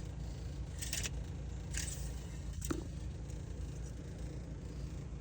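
Engine oil dipstick being wiped and worked in its tube: two brief scraping swishes about one and two seconds in, then a light click near the three-second mark, over a steady low hum.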